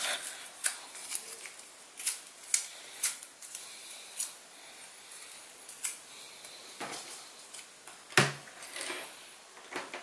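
Paper being torn by hand into small scraps: scattered short tearing snaps and rustles, with a couple of soft knocks near the end. No vacuum motor is running.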